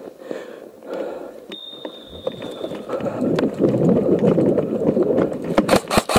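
A player running over grass with gear rattling and rubbing against the body-worn camera, then a quick string of about four airsoft rifle shots near the end as he stops and fires.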